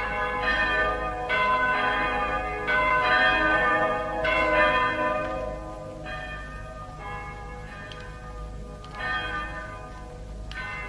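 Church bells ringing, struck about once every one to two seconds, each stroke leaving a long, many-toned ring; louder for the first six seconds or so, then softer.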